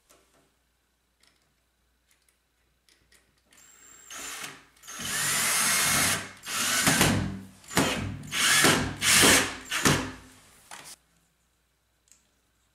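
Power drill driving a screw into a metal bracket at the foot of a glass shower door, run in several bursts, one long and then a handful of short ones, with a rising whine as the motor spins up. It starts about four seconds in and stops about eleven seconds in.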